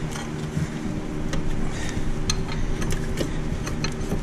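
A few sharp, light metallic clicks and clinks of a wrench working on a rear brake caliper and its bolts, at irregular moments over a steady low hum.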